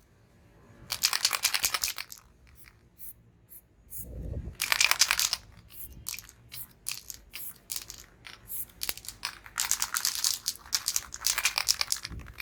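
Paper crinkling and tearing in three crackly bursts, with scattered small clicks between them and a low handling thud about four seconds in.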